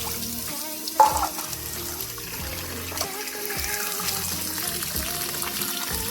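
Background music with a steady watery hiss beneath it, and one sharp knock about a second in.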